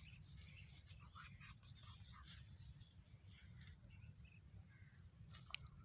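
Near silence: faint outdoor ambience, a steady low rumble with a few faint scattered ticks and chirps.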